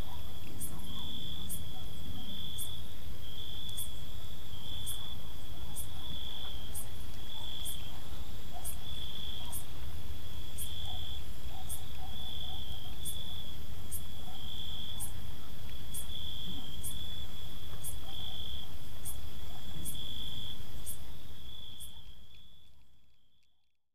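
Night-time crickets chirping: a steady high trill that pulses, with a sharper high tick about every two-thirds of a second over a low background rumble. The whole ambience fades out over the last few seconds.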